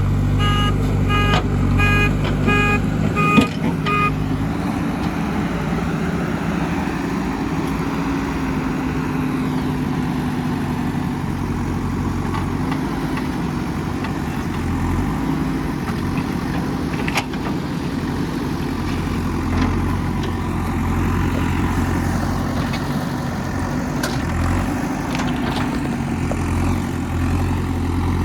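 Diesel engine of a digging machine running steadily under work, with a reversing alarm beeping about twice a second for the first few seconds. A couple of short metallic knocks come later.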